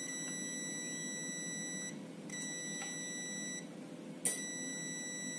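Digital multimeter's continuity buzzer giving a steady high beep three times, each one to two seconds long, with a sharp click as the probe touches again about four seconds in. The beep shows continuity across the CRT TV power supply's main switching transistor: the transistor is shorted.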